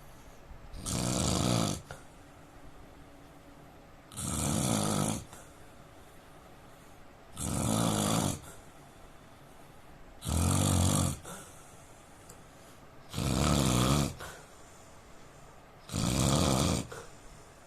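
A man snoring in his sleep: six snores at a steady rhythm about three seconds apart, each lasting about a second.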